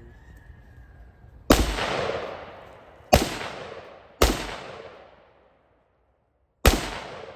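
Four gunshots from a firearm at target practice, unevenly spaced, each followed by a long echo that fades away.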